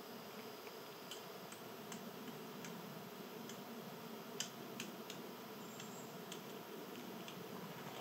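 Scattered sharp clicks and taps of a chipmunk and a blue jay picking at and cracking birdseed on a wooden stump. The two loudest come close together about halfway through, while the blue jay is at the seed. A faint steady background hiss runs underneath.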